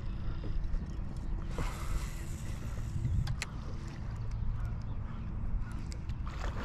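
Wind rumbling on the microphone and water lapping against a small fishing boat's hull, with a few sharp clicks.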